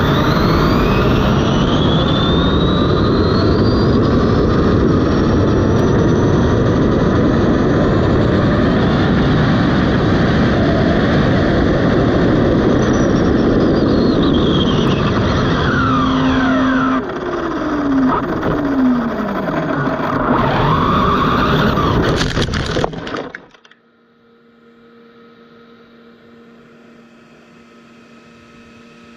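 Onboard sound of an Arrma Limitless RC car's brushless electric motor and drivetrain at full speed on asphalt: a whine rising in pitch over loud wind and tyre roar, falling away and rising again later, then cutting off abruptly about 23 seconds in as the car runs off the road. After that it is quiet except for a faint steady hum.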